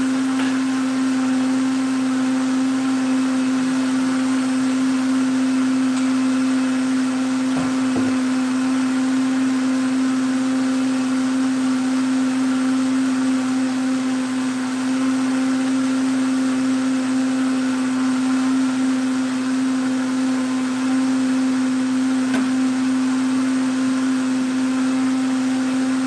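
Countertop blender running at one steady speed, blending a green smoothie of watermelon rind: a loud, even hum that holds the same pitch throughout.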